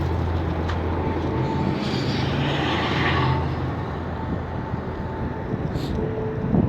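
A steady low engine hum, with a rushing noise that swells and fades about two to three seconds in.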